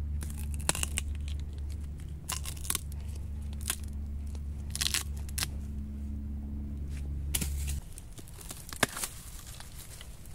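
Dry bamboo leaf litter and stalks crunching and crackling underfoot and under hand, with scattered sharp cracks. A low steady hum runs beneath until it cuts off suddenly near the end.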